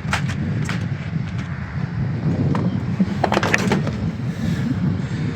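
Metal hand tool clicking and clinking on a bolt in the engine bay. There are a couple of sharp clicks near the start and a quick run of clicks about midway, over a steady low rumble.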